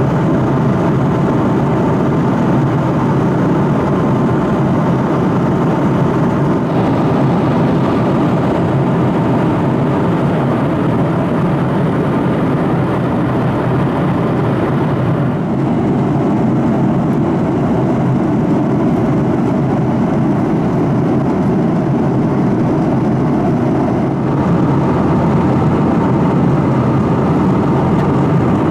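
Steady cabin roar of a Boeing 737-700 in cruise, heard from a window seat: airflow over the fuselage and the hum of its CFM56-7B turbofans. Its tone shifts slightly three times.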